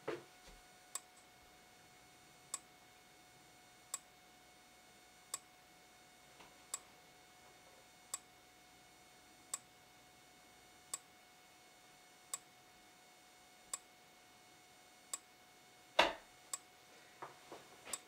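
Simplex 4903-9101 strobe flashing, each flash giving a sharp tick, evenly about every 1.4 s: the slow flash rate of this pre-ADA strobe. A faint steady tone runs underneath, and a louder knock comes about two seconds before the end, followed by a few small clicks.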